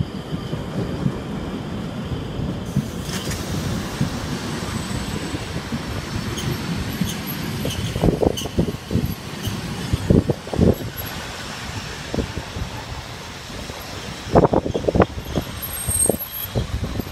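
Narrow-gauge railway coaches rolling slowly past as the train arrives, wheels rumbling on the track. Knocks from the wheels at the rail joints come about eight and ten seconds in and in a quick cluster near the end.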